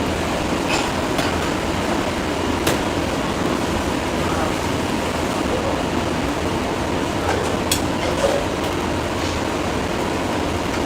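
Steady rumble of a moving vehicle, with a few short sharp clicks.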